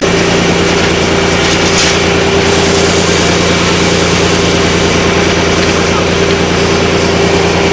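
An engine running steadily at one speed, a droning hum under a loud, even rush of noise.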